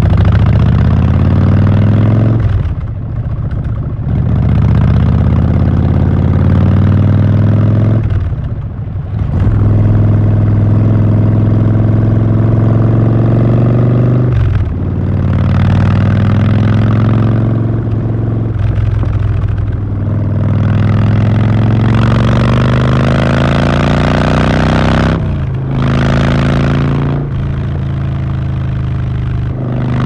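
Harley-Davidson Fat Bob's V-twin through Vance & Hines Short Shots Staggered exhaust, pulling under load: its note climbs, drops off briefly about five or six times, and climbs again, like a rider accelerating and shifting or rolling off the throttle.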